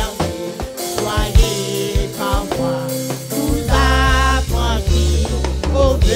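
A group of women singing a French hymn together into microphones, over a backing band with a steady bass line and drums.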